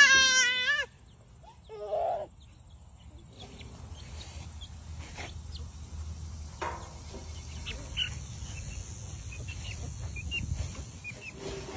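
Chicks peeping, scattered short high chirps. A loud cry with wavering pitch comes first, lasting about a second.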